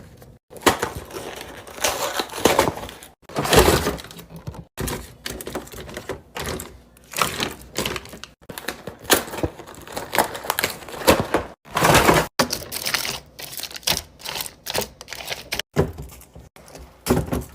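Irregular clatter, knocks and clacks of containers being set and arranged on fridge shelves, broken by several sudden cuts.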